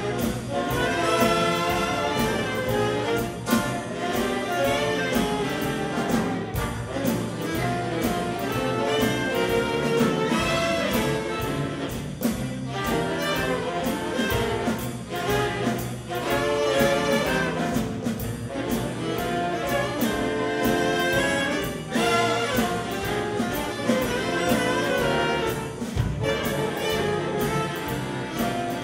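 Big band playing jazz live: saxophone section, trumpets and trombones together with piano, guitar and drums, in a steady swing.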